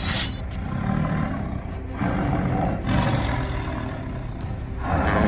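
A rough, low roar in several long stretches, opened by a short bright ringing hit.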